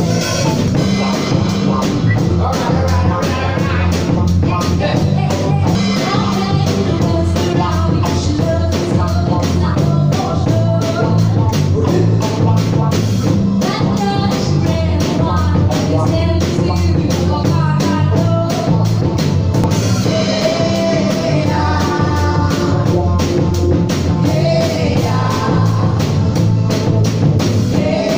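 Live band playing a soul-funk song: electric bass, drum kit and keyboard under several singers, with a steady beat.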